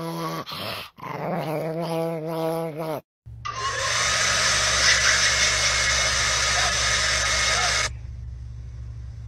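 A small dog growling, its growl rising and falling in pitch, for about three seconds. After a short break, a vacuum cleaner runs with a steady whoosh, the loudest sound here, for about four and a half seconds. It cuts off suddenly, and a quieter low hum is left.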